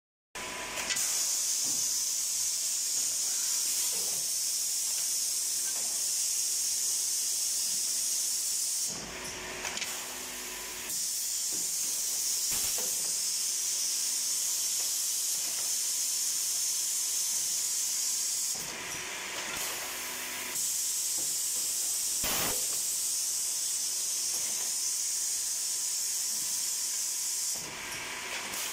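Woodworking machining centre running with a steady high-pitched hiss, which drops away briefly three times.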